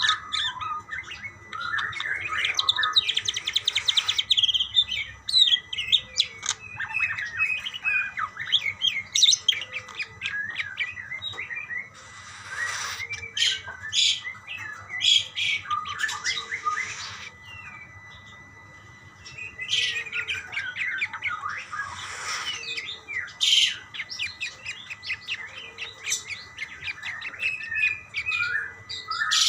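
Several budgerigars chirping and warbling back and forth in a rapid, continuous chatter, broken by harsher squawks. The calling dips into a short lull about two-thirds of the way through.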